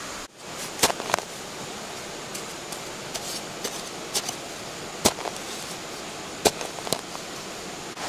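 A hand digging tool striking into soil in a few sharp, scattered chops over the steady rush of a river.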